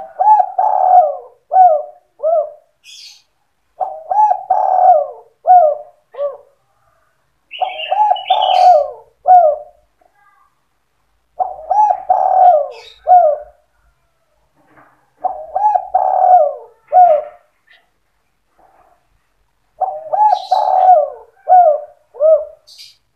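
Spotted dove (tekukur) cooing its song over and over: six phrases of several coos each, about every four seconds, in the 'sandung kuk 2' style used as a lure call to bring other spotted doves in. Faint high chirps come between some of the phrases.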